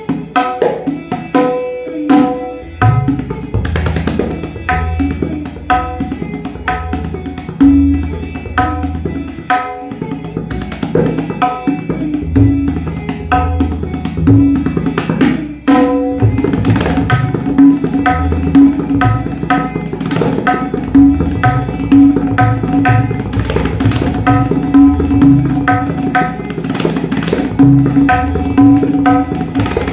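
Tabla pair (dayan and bayan) playing a Rupak taal rela built on dhirkit/tirekita strokes, with the bayan's bass sounding under the dayan's ringing strokes. About halfway through there is a brief break, and the playing switches to double speed in a fast, continuous roll of strokes.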